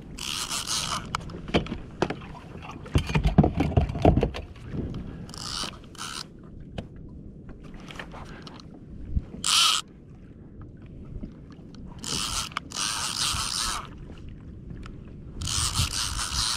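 A conventional fishing reel cranked in several short spells, its gears whirring as line is wound in on a hooked fish. A cluster of dull knocks and bumps comes about three to four seconds in.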